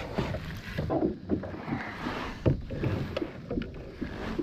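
Irregular knocks, clacks and rustles of a landed bass, landing net and fishing gear being handled against a plastic kayak's hull.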